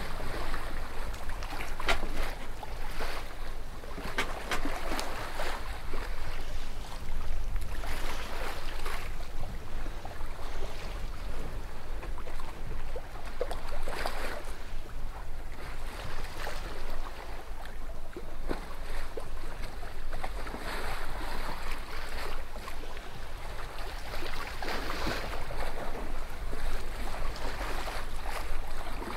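Sea water rushing and splashing along the hull of a moving sailing yacht, with wind on the microphone; the wash swells and eases irregularly every few seconds.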